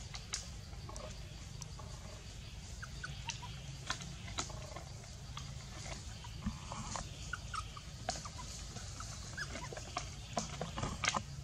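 Macaques in a tree: scattered soft short squeaks and clicks, over a steady low hum, with a few louder clicks near the end.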